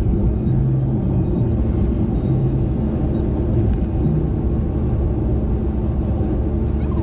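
A car driving along a road, its engine and tyres making a steady low rumble.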